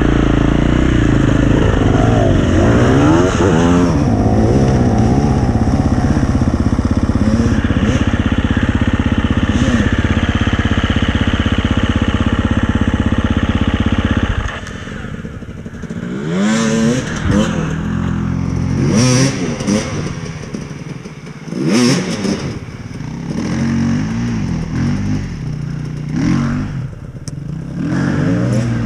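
Enduro dirt bike engine running hard close to the microphone, its pitch wavering as the throttle is worked. After a sudden drop in level about halfway through, a dirt bike engine revs in short rising-and-falling bursts, four or five times, over a rocky trail.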